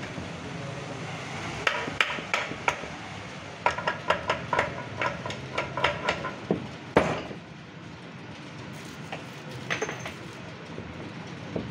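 Metal tools clinking and tapping on a tractor dual-clutch pressure plate assembly held in a clutch press. The sharp, ringing clinks come in a quick run, a few at a time and then several a second, from about two to seven seconds in, before thinning out.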